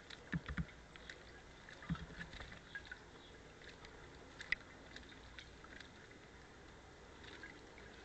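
American robin bathing in a shallow bird bath, fluttering its wings and splashing water in short bursts. The loudest splashes come about half a second in and again around two seconds in, with scattered smaller splashes and drips between.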